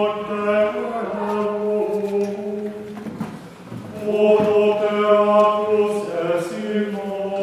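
Voices chanting plainchant in unison, with long held notes that step slowly in pitch; the phrase breaks off about three seconds in and a new one starts a second later.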